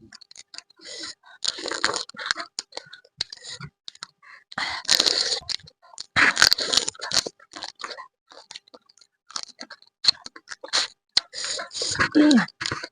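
Close-miked eating of crab curry: crunching and chewing of crab with clicking mouth sounds in irregular bursts, loudest about five seconds in and again from six to seven seconds.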